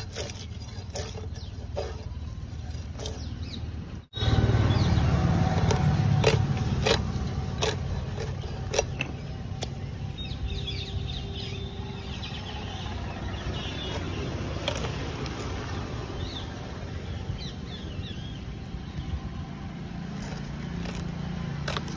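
A large fish being scaled against a curved boti blade: repeated short rasping scrapes and clicks. Under them runs a steady low background rumble, with a brief dropout about four seconds in.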